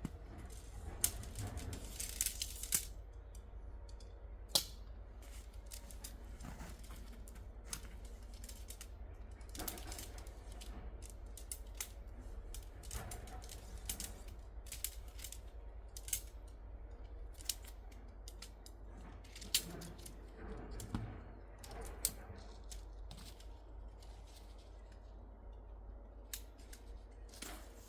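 Scattered small clicks and taps at an irregular pace, a few sharper than the rest, over a faint steady low hum.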